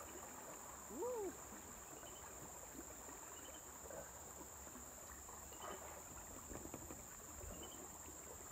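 Steady high-pitched insect drone, with faint short chirps repeating about every second and a half. About a second in, one short call rises and falls in pitch.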